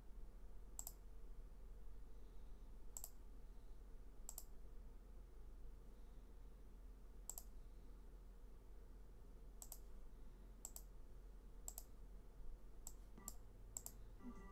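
Computer mouse clicks: about ten sharp single clicks at irregular intervals, coming closer together near the end, over faint room tone.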